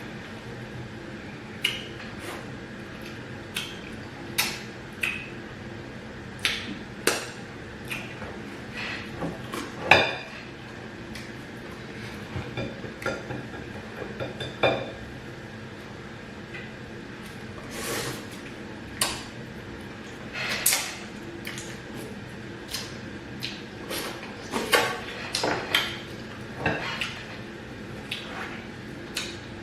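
Irregular clinks and taps of dishes and cutlery during eating, some sharper than others, spread at uneven intervals.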